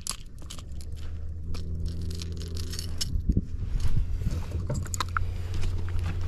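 Scrapes, knocks and rattles of gear being handled on a fishing kayak while a hooked largemouth bass is landed. Under them, a steady low hum starts about a second and a half in.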